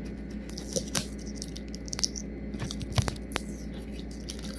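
Rope tape being wrapped by hand around a rope and steel eye bolt: a few light clicks and crinkles of handling, over a steady low hum.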